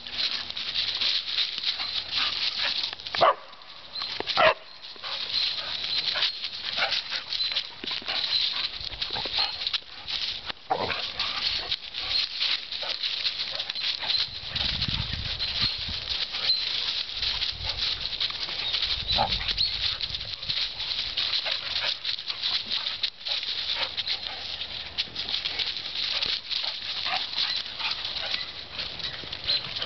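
Two dogs romping through dry fallen leaves: a constant crackle and rustle of trampled leaves, broken by two short, loud barks about three and four and a half seconds in.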